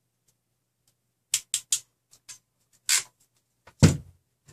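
A hand crimping tool clicks three times in quick succession, then a few lighter clicks and taps of handling, and a heavier knock near the end as the tool is set down on the table.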